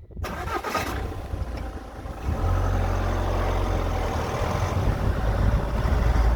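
A 2.0-litre diesel car engine starts suddenly just after the beginning and keeps running with a steady low rumble, which grows louder about two seconds in.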